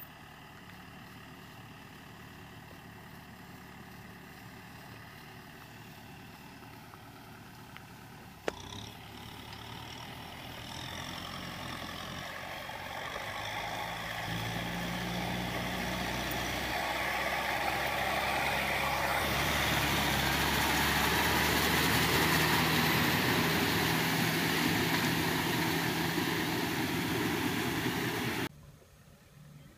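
Kubota M6040SU tractor's diesel engine running under load while it tills a flooded rice field with its rear rotary tiller. The engine is steady and fairly quiet at first. After a click about 8 s in it is louder, with a rougher noise on top, and it builds to its loudest in the second half before cutting off suddenly near the end.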